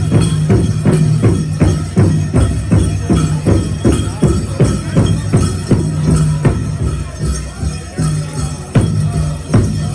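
Powwow drum group singing over a steady, even beat on the big drum, about four strokes a second.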